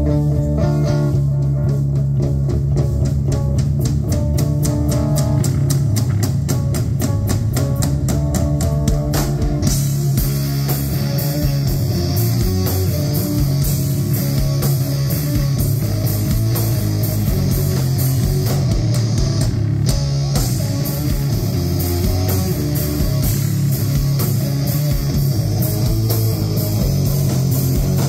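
Live instrumental rock band playing: bass guitar, electric guitar, drums and saxophone. About ten seconds in the sound thickens into a fuller, denser passage with more cymbal wash on top.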